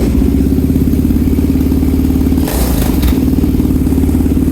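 Yamaha motorcycle engine running steadily and very loud through an exhaust lacking enough damping; the owner wants another damper on it. There is a brief change in the note about two and a half seconds in.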